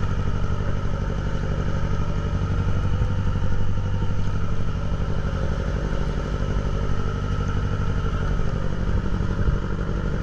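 A boat's engine running steadily at an even speed, with a constant low hum.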